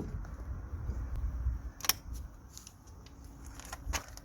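Workshop handling noise at a car's rear wheel: three sharp metallic knocks, roughly two seconds apart, over a low rumble of parts and tools being moved.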